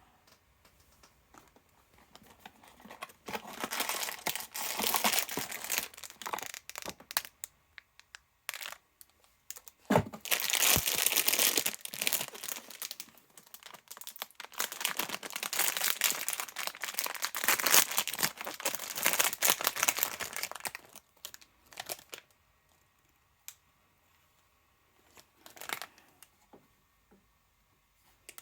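Toy packaging being crinkled and torn open by hand in several bouts with short pauses between, with a few knocks as it is handled.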